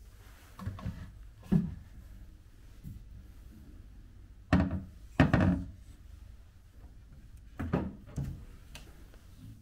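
Carved wooden cabinet doors being handled, giving several dull wooden knocks: a pair about a second in, the loudest pair around the middle, and two more near the end.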